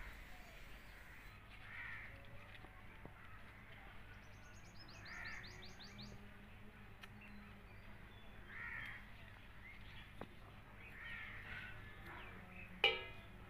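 Crows cawing in the background, a harsh call about every three seconds, with the loudest caw near the end. A small bird gives a quick run of high chirps about five seconds in.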